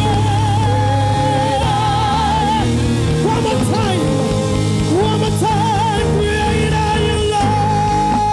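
Gospel worship band playing: a held lead melody line that wavers and bends, over a steady bass and chords.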